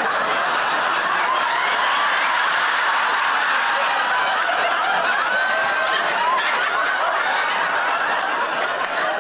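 Studio audience laughing, a long sustained wave of laughter from many people at once.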